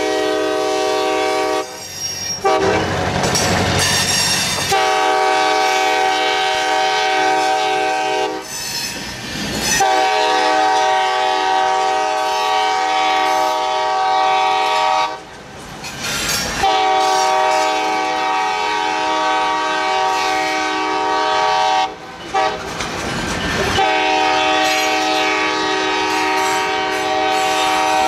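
Diesel switcher locomotive's air horn, most likely on the Ogeechee Railway's EMD SW800, sounding a chord in a run of long blasts, about five, each several seconds long. The noise of the moving train fills the short gaps between blasts.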